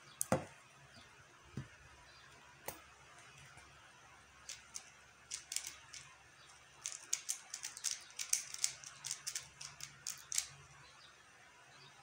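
A thump just after the start and a couple of single knocks, then runs of quick, irregular plastic clicking from a QiYi X-Man Tornado V1 3x3 speedcube as its layers are turned to scramble it before a solve.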